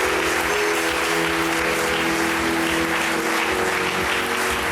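Audience applauding, with held musical notes sounding steadily underneath.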